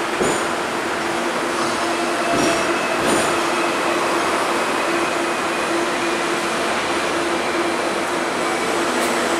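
Hong Kong double-decker electric tram running along its rails, heard from inside the upper deck: a steady rumble and rattle of the car in motion with a continuous low hum, and a few sharp knocks in the first three seconds.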